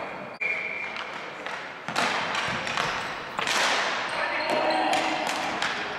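Ball hockey game sounds on a gym floor: irregular sharp clacks of sticks and ball on the hardwood, echoing in the hall, with a brief high squeak near the start.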